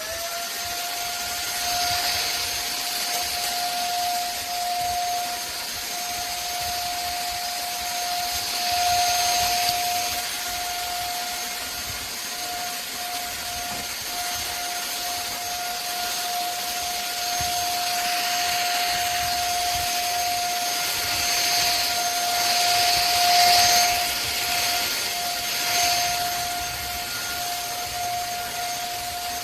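Simplus 400 W vacuum cleaner running: its motor spins up right at the start and then holds a steady high whine over a rush of air. The rush of air swells louder several times.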